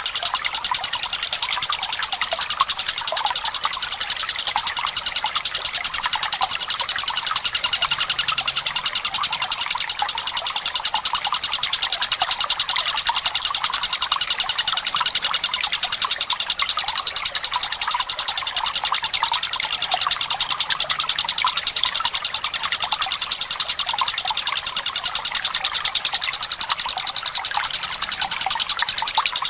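Tengkek buto kingfisher calling in long, rapid rattling trills over a steady trickle of running water.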